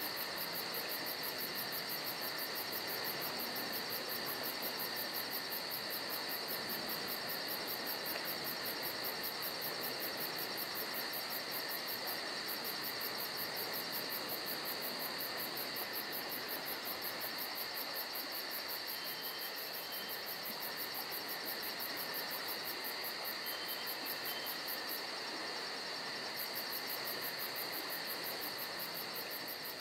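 A steady chorus of swamp insects: continuous shrill trilling with a very fast, even high pulsing on top. The pulsing breaks off briefly twice, and two faint short chirps come in about two-thirds of the way through.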